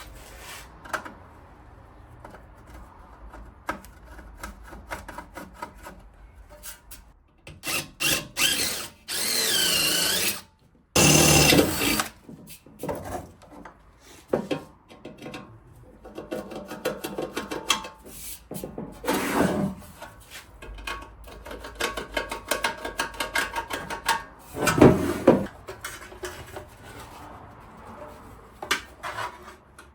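Power drill with a 5/16 in bit drilling mounting holes in a motorcycle fender. It runs in a few separate stretches, the longest about a third of the way in, with the motor's pitch rising and falling. Clicks and knocks of handling come between the runs.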